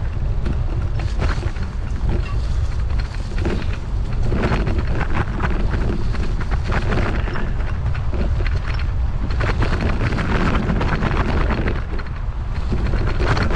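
Wind buffeting the microphone: a constant heavy low rumble with irregular gusts of rushing noise over it.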